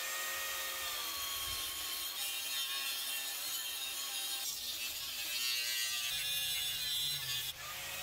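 Corded angle grinder cutting through a metal linear rail: a steady high hiss of the disc grinding metal over the grinder's motor whine.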